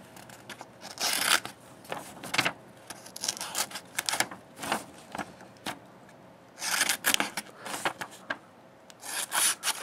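Paper rustling as it is handled, and a small folding knife's blade cutting into the sheet in several brief scratchy strokes. The edge bites and catches in the paper more than it slices: it has a little toothiness to it.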